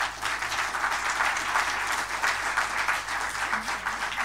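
Audience applauding, many hands clapping together at a steady level.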